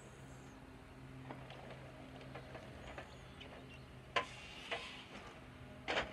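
Distant diesel engines of tracked logging machines, a processor and an excavator, running as a steady low drone. A few sharp knocks break in during the second half, the loudest near the end.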